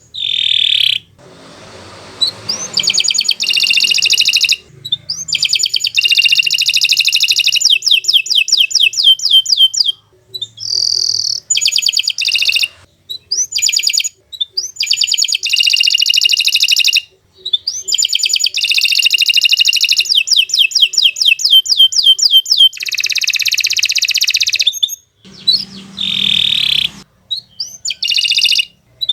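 Domestic canary singing long phrases of rapid trills and rolls, each run lasting several seconds, with short breaks between phrases.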